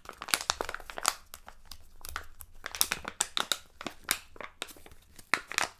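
Plastic foil toy wrapper crinkling and tearing as it is pulled open by hand, a dense run of irregular crackles.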